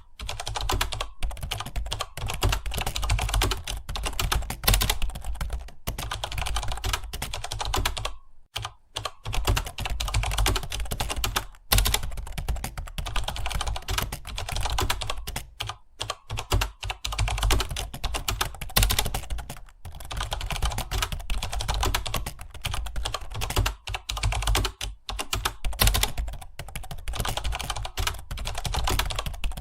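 Fast, continuous typing on a computer keyboard, a dense run of keystrokes broken by brief pauses about eight seconds in and again near twelve seconds, over a steady low hum.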